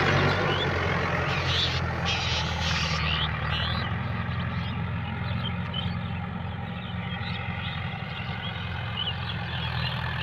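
Mahindra Yuvo Tech Plus 575 DI tractor's four-cylinder diesel engine running steadily under load as it drives a rotavator through the soil, growing slightly fainter. Short high bird chirps sound over it.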